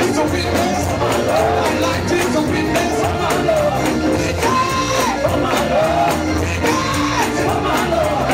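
Fast Pentecostal-style gospel praise music: a congregation clapping a quick, steady beat, with singing and shouts over the band.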